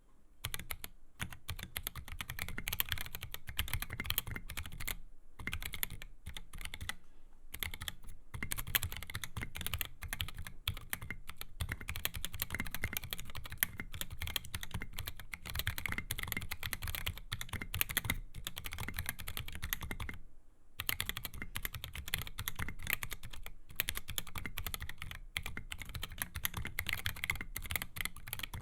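Continuous typing on a custom mechanical keyboard with stock Durock Koala tactile switches, SA MaxKey keycaps and an XD84 case and plate: a dense run of key clicks with a few short pauses, one of them about twenty seconds in.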